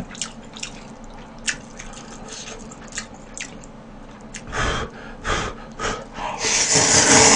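Instant ramen noodles in broth being eaten: small wet clicks and drips of chopsticks and tongs in the bowl, a few short slurps about five seconds in, then a long, loud slurp of noodles near the end.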